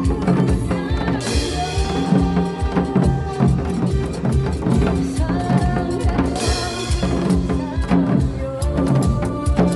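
Janggu (Korean hourglass drum) busking to music with a steady drum beat and a melody. Cymbal crashes come about a second in and again past six seconds.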